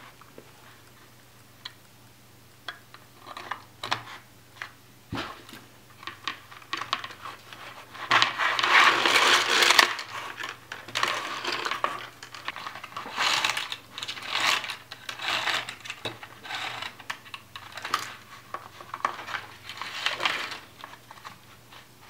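Handling noise from an Arduino board and relay circuit board being fitted into a clear plastic box: scattered clicks and knocks of the boards against the plastic, with bursts of scraping and rustling, the longest about a third of the way in.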